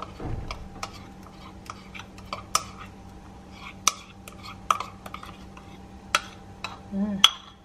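A metal utensil scraping and clinking against a ceramic bowl as pancake batter is scraped out into a frying pan: a dull knock at the start, then irregular sharp clinks.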